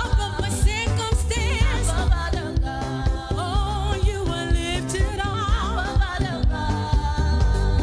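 Live gospel praise-and-worship music: singers with a strong vibrato over a band with heavy bass.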